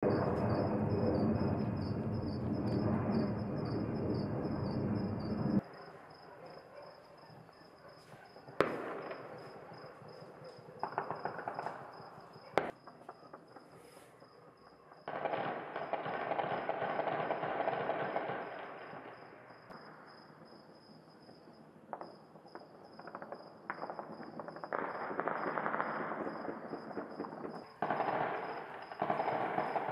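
Distant celebratory gunfire and fireworks crackling across a city at night: long stretches of dense crackling, with two sharp single bangs about a third of the way through.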